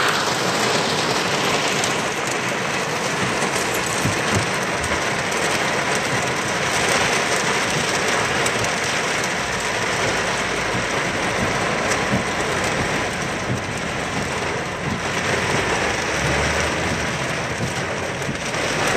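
Torrential rain pelting a car's roof and windshield, heard from inside the cabin as a dense, steady hiss.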